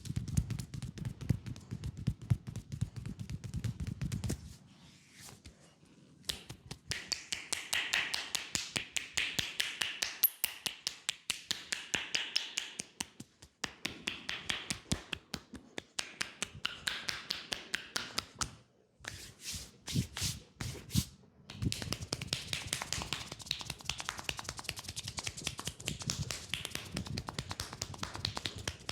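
Massage hands striking a leg in fast tapping runs, many strikes a second, in several bursts with short pauses between them. A few single, more separate strikes come about two thirds of the way through.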